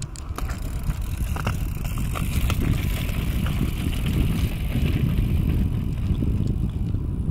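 Mountain bike riding down a rocky trail: a steady low rumble of wind and rolling tyres on the microphone, with scattered clicks and rattles over the stones.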